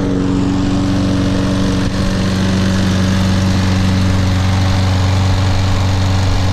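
Toro Recycler 22-inch walk-behind mower's 190cc single-cylinder engine running steadily at constant speed, its note unchanging.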